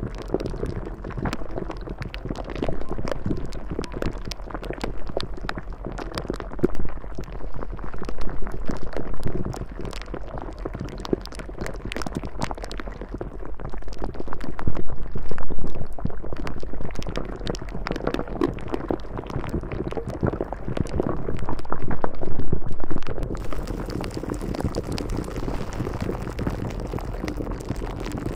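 Water bubbling, a dense crackle that swells louder and softer in waves. A steady hiss joins about five seconds before the end.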